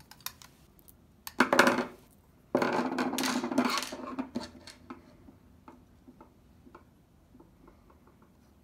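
Metal hard-drive caddy, screwdriver and small screws being handled on a desk: a few clicks, a sharp metallic clatter about a second and a half in, a longer rattling clatter from about two and a half to four seconds, then light ticks as the drive is worked into the caddy.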